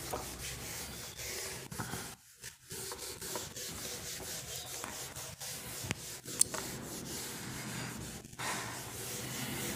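Faint scratching and rubbing noise with a few small clicks about six seconds in, over a steady low hum.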